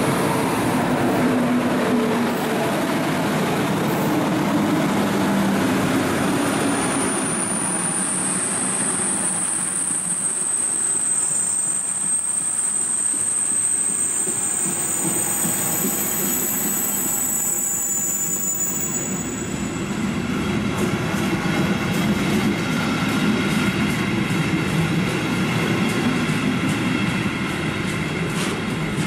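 Freight train hauled by two class 143 electric locomotives passing through the station, with a steady rumble of wheels on rail. A high, thin wheel squeal sounds through the middle, and in the last third the wagon wheels click regularly over the rail joints.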